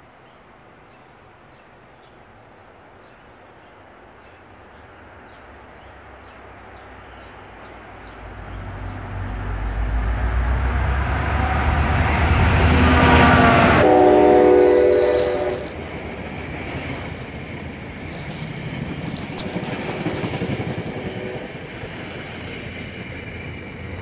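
NJ Transit passenger train led by a diesel locomotive approaching and passing, its rumble growing steadily louder. Around halfway through the locomotive sounds a horn blast of about three seconds, whose pitch drops as it goes by. The passing cars follow with a lower rumble and wheels clicking over the rail joints.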